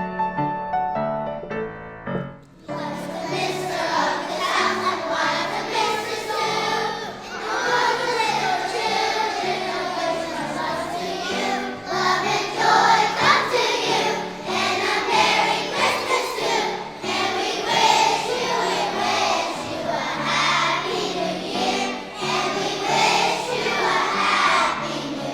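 A chorus of young children singing a holiday song with piano accompaniment. Piano alone plays for about the first two seconds, then the children's voices come in.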